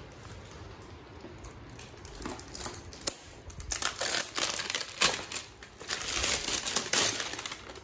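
Plastic treat packaging crinkling and crackling as a box of dog treats is opened, a quiet start then a run of rustling and sharp clicks from about three and a half seconds in.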